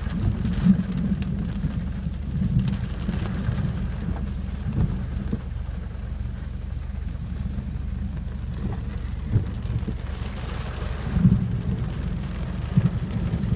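Thunderstorm rain on a car, heard from inside the cabin through a window cracked open, over a low rumble of thunder that swells briefly near the end.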